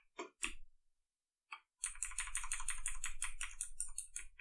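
Computer keyboard keys clicking: a few separate key presses, then from about two seconds in a quick, even run of taps, roughly eight a second, as the cursor is stepped down line by line in a text editor.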